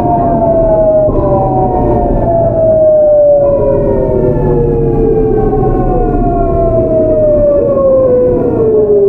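GEC Alsthom GTO-thyristor VVVF inverter and traction motors of a Seoul Metro 8000-series train whining in several tones that fall steadily in pitch as the train slows, over the rumble of wheels on rail. The tone pattern shifts abruptly about three and a half seconds in.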